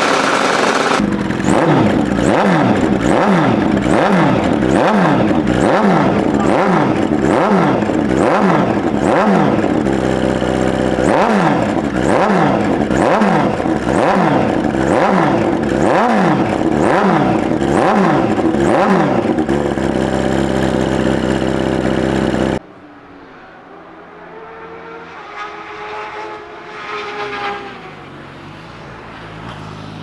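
Classic Suzuki racing motorcycle engine revved in quick repeated throttle blips, about one and a half a second, for nearly twenty seconds, then held at a steady rev. The sound then cuts suddenly to a much quieter motorcycle passing on the track, its engine note rising and falling.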